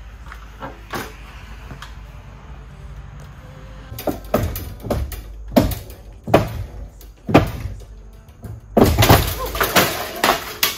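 An old garage door opener's metal rail being worked loose from its header bracket: five or so sharp knocks about a second apart, then a loud clattering crash near the end as it breaks free and drops.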